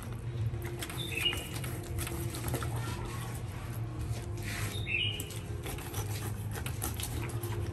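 A knife cutting into a large grouper's head and gills in a steel tray, with scattered clicks and scrapes, over a steady low hum. A short high falling chirp sounds twice.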